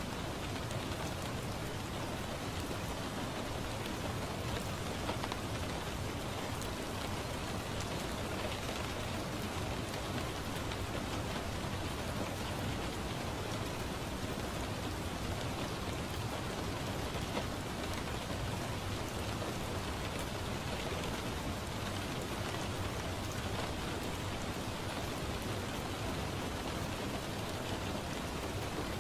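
Steady rain falling, a continuous even patter of drops on surfaces.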